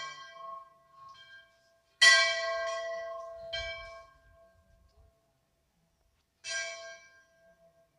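Hindu temple bell struck several times, each clang ringing on and slowly fading. The first is already fading at the start. A loud strike comes about two seconds in, a lighter one follows a second and a half later, and another comes near the end.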